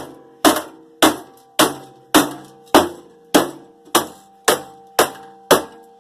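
Hammer beating repeatedly on a metal part of a microwave oven, about eleven steady blows a little under two a second, each one leaving a short metallic ring.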